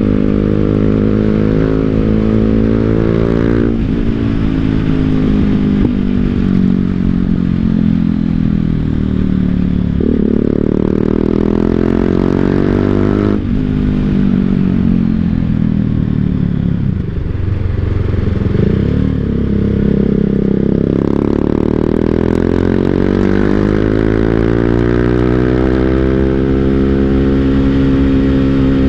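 BMW G 310 GS single-cylinder engine running through an Akrapovic full-system exhaust while riding. The revs climb and drop sharply at gear changes about four and thirteen seconds in, fall away for a few seconds in the middle, then build steadily under acceleration near the end.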